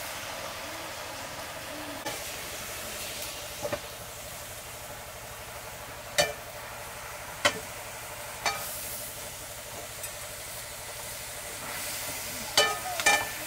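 Chopped leafy greens sizzling in a black iron wok over a wood fire, with a steady hiss. A wooden ladle stirring them knocks against the pan several times, each knock ringing briefly, the last two close together near the end.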